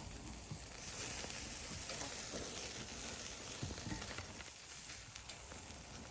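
Meat sizzling on a grill over a wood fire: a steady hiss that grows louder about a second in, with small crackles.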